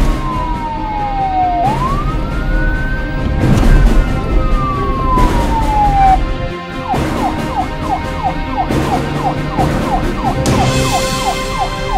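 Police siren wailing in slow falling and rising sweeps, then about halfway through switching to a fast yelp of short repeated chirps, about four a second.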